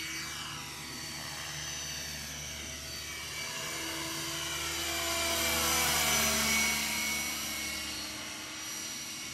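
Gaui Hurricane 425 electric RC helicopter with 465 mm blades in flight: a steady motor and rotor whine that grows louder about six seconds in as it comes close, then eases off as it moves away.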